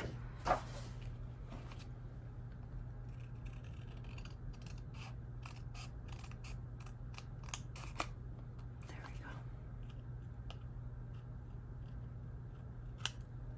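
Scissors cutting paper in a scattered series of short snips, over a faint steady low hum.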